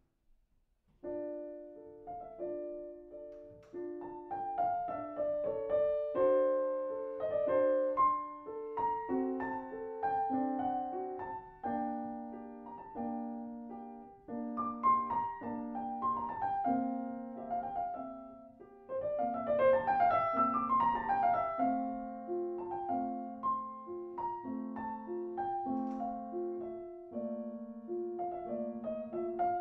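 Grand piano playing a classical piece: after a moment of quiet, playing begins about a second in, with steady repeated chords in the middle register under a melody and a quick flurry of runs up and down about two-thirds of the way through.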